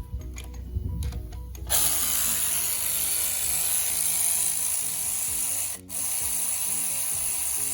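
A few light knocks, then a loud, steady spray hiss starting about two seconds in, broken for a moment near six seconds and starting again: pressurised spray on the engine parts. Background music plays underneath.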